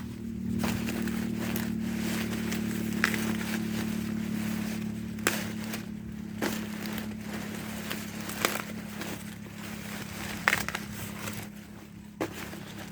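Dry corn plants being worked by hand: sharp snaps, about every one to two seconds, over crackling and rustling of dry husks and leaves, as ears are broken off the stalks. A steady low hum runs underneath.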